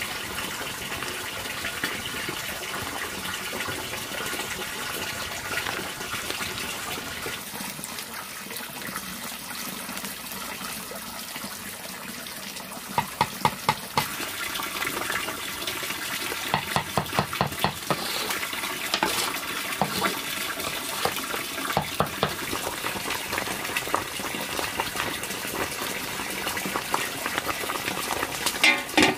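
Water running steadily, as from a tap or pipe, with quick runs of clicks or taps about thirteen and seventeen seconds in.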